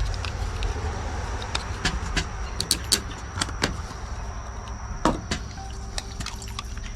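Irregular clicks and light knocks of mower parts and tools being handled during carburetor disassembly, over a faint steady high-pitched tone.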